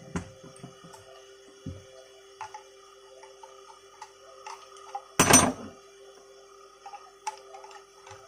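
Scattered light clicks and taps over a faint steady hum, with one loud, noisy clatter lasting about half a second about five seconds in. The grinder's motor is not running.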